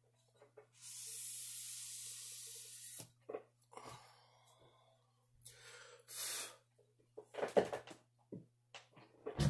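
A sprayer hissing steadily for about two seconds, then a shorter hiss and scattered clatter and knocks from sharpening stones being handled, the loudest knock right at the end.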